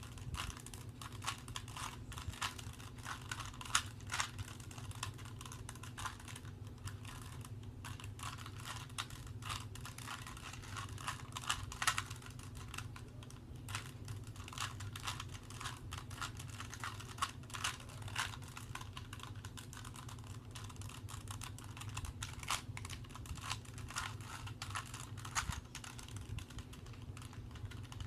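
Rubik's Cube layers being twisted by hand: a rapid, irregular stream of plastic clicks and clacks, over a steady low hum.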